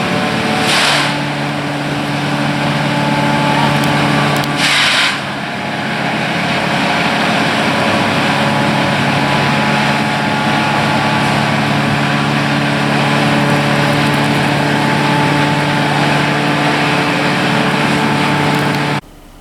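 An engine running steadily at a constant pitch, with two short bursts of hiss, about a second in and near five seconds; it cuts off suddenly near the end.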